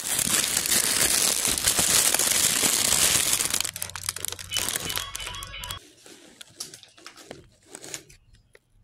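Paper burrito wrapper crinkling and rustling close to the microphone, loud and dense for the first few seconds, then thinning to sparse, fainter crinkles.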